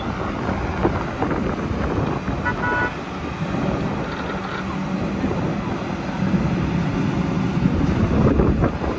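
Truck engine running amid road traffic noise, with a short horn toot about two and a half seconds in.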